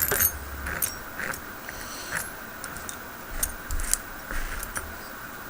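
Small metal lock pins and parts being handled. Light irregular clicks and taps, a dozen or so scattered through, the loudest about four seconds in.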